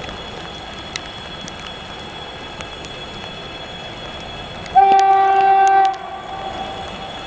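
VL11M electric locomotive's horn sounding one loud blast about a second long, which cuts off sharply and leaves a faint echo. Under it runs the steady noise of the passing train.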